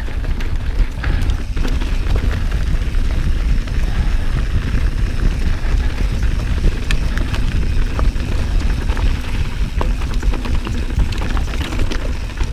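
Santa Cruz Bronson mountain bike riding over a bumpy, rocky trail: a steady low rumble with frequent rattles and clacks from the bike and loose stones.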